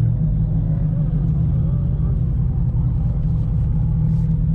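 Steady low rumble of a car's engine and road noise heard from inside the car as it drives slowly.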